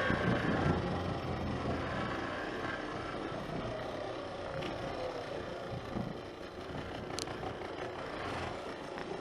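Honda CBX125 motorcycle engine running under way, giving off the strange abnormal noise that appears as the revs rise. The engine note is loudest in the first second and eases off a few seconds in.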